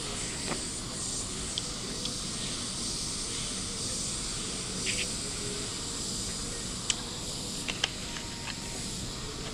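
Steady hiss of air from hospital neonatal-unit equipment, with a few faint soft clicks scattered through and two sharper ones near the end.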